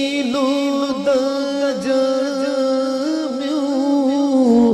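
A man singing an Arabic naat, drawing out one long note that wavers slightly and falls near the end.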